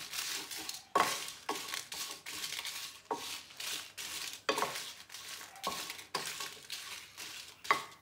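Wooden spatula stirring and scraping dried red chillies, shallots and curry leaves around a nonstick frying pan, in repeated strokes about one or two a second, over a light sizzle as they heat in the pan before grinding.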